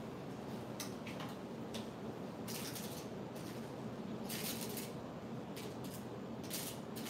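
Metal palette knife scraping and spreading printing ink on a glass slab in short strokes, one every second or so, with a longer scrape about four seconds in as ink is scooped off aluminium foil. A steady low room hum lies underneath.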